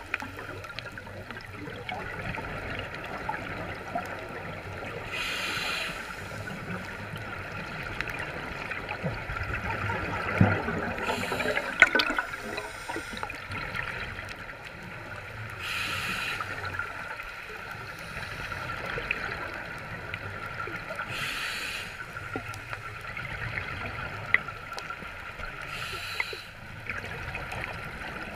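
Scuba diver breathing through a regulator, heard underwater: a bubbly exhalation about every five seconds over a steady hiss. A few sharp knocks and clicks come about a third of the way through.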